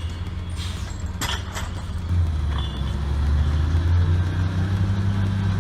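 A heavy vehicle's engine running with a steady deep drone, getting louder about two seconds in, with a few light knocks near the start.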